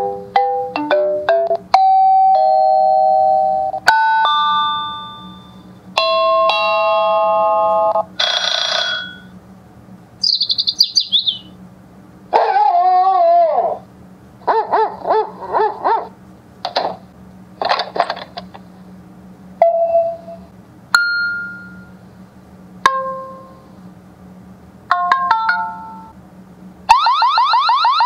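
Wyze plug-in electronic doorbell chime playing its built-in tunes one after another, each a few seconds long with short gaps: note melodies and ding-dong tones, a high chirping sound, and near the end a fast warbling intruder-alarm siren.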